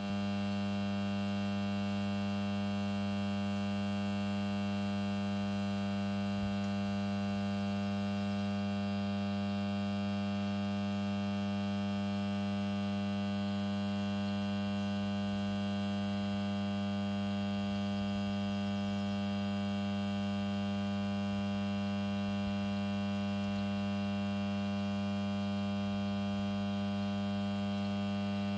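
110/10 kV power transformer humming steadily, a deep, unchanging electrical hum with many overtones. It is the normal hum of an energised transformer's core.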